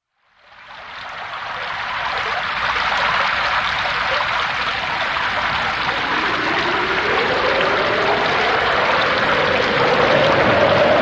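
Wind and rain storm: heavy rain pouring steadily, fading in over the first second or two. From about six seconds in, a howling wind rises and wavers in pitch over the rain.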